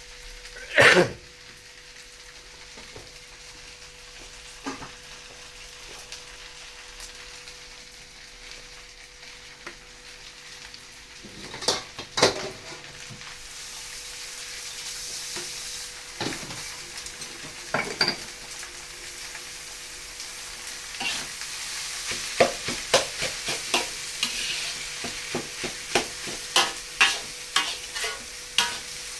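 Fried rice sizzling in a pan while a spatula stirs and scrapes it. There are a few sharp knocks in the first half; the sizzle grows louder about halfway through, and near the end the stirring strokes come quickly, several a second.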